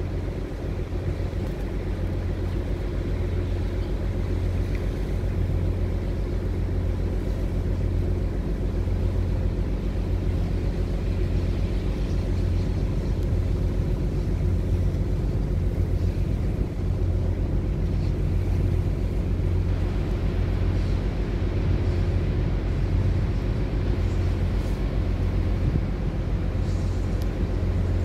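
Cargo ship's diesel engine running steadily under way, heard on board as an even low drone.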